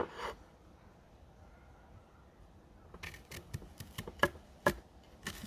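Knife cutting into an Asian pear: after a quiet stretch, a run of sharp cracks and clicks, several a second, begins about three seconds in.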